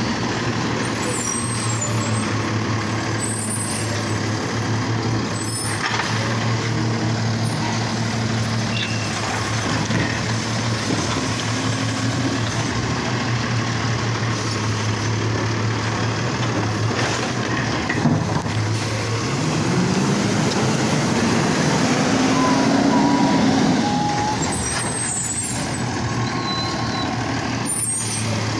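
Automated side-loading garbage truck running steadily at the curb. Past the middle its engine revs up for several seconds and settles back, as it does when driving the hydraulics for the lifting arm. A few short knocks are heard.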